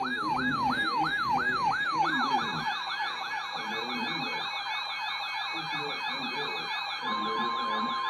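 Emergency vehicle sirens sounding together. One repeats a sweeping wail that speeds up into a fast yelp about two and a half seconds in, and a higher siren wavers over it. About a second before the end, a steady single alert tone starts.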